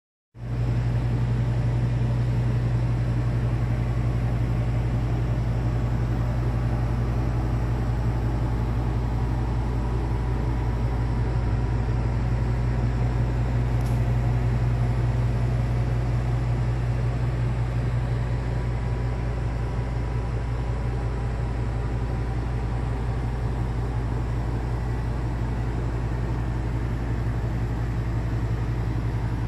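A steady low mechanical hum from a running machine, unchanging throughout, with a faint even hiss over it.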